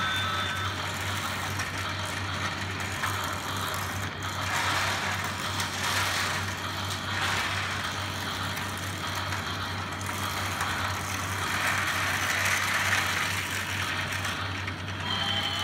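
Small battery-powered motors and plastic gears of toy trains whirring steadily as the trains run along plastic track, with a constant low hum beneath.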